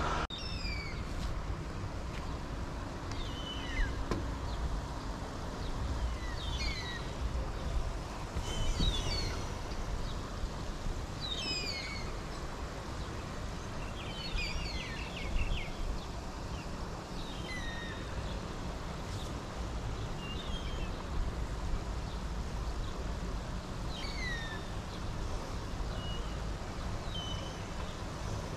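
Small birds calling at intervals: short, high chirps that slide downward, with a quick run of several together about halfway through, over a steady low rumble.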